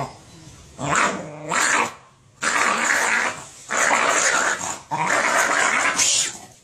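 A dog snarling and growling in about five harsh bursts, some over a second long, as it attacks its own front paw while guarding its food bowl.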